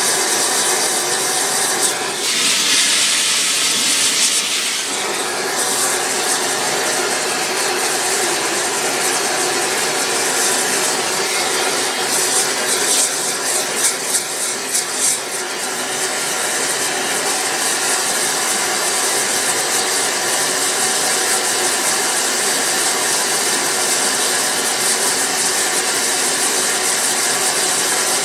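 Silver-melting furnace flame running with a steady rushing hiss. It grows brighter for a few seconds about two seconds in and flutters briefly around the middle.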